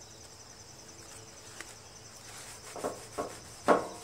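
Crickets chirping in a steady, fast pulsing trill, with a few short scuffs about three seconds in, the last one the loudest.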